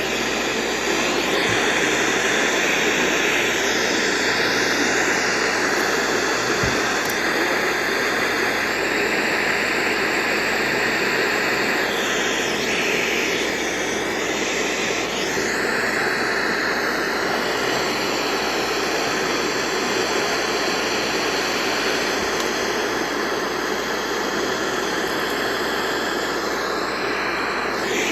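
Steady hiss of radio static, its tone shifting slowly.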